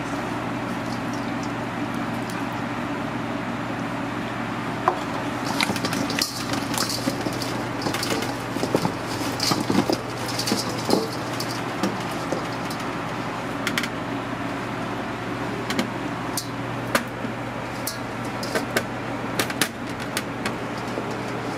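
Squash wedges tossed by gloved hands in a stainless steel bowl, with scattered light clicks and scrapes against the metal, over a steady commercial-kitchen hum.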